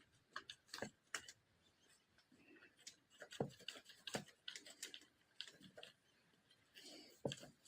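Near silence with faint, irregular clicks and taps scattered throughout.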